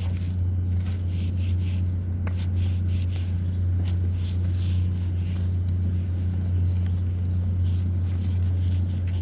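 Steady low machine hum, with a few light clicks and taps scattered through it.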